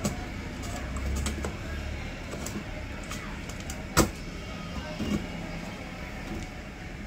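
Handling noise from an amplifier board and its sheet-metal cabinet. A low rumble comes in the first two seconds, then one sharp knock about four seconds in and a softer one about a second later.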